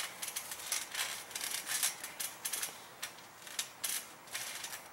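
Trampoline springs and mat creaking and clinking in irregular light clicks as two people shift their weight and get to their feet on it.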